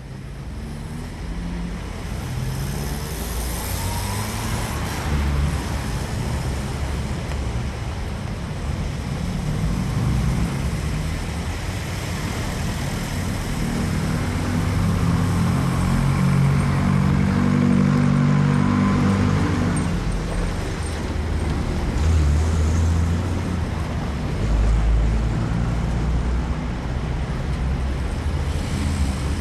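City street traffic: cars and other motor vehicles driving past in a continuous stream of engine rumble and tyre noise, swelling as heavier vehicles pass about halfway through and again near the end.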